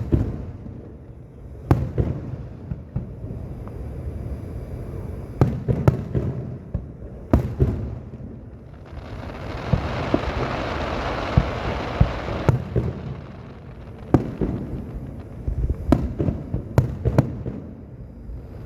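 Fireworks display: aerial shells bursting with sharp booms, some singly and some in quick clusters of two or three, with a few seconds of steady hissing crackle in the middle.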